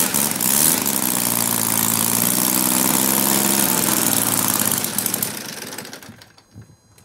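Kolm 150cc three-cylinder inline engine in a large-scale RC P-51 Mustang running steadily with its propeller turning, then fading and dying out over about a second near the end as it runs out of fuel.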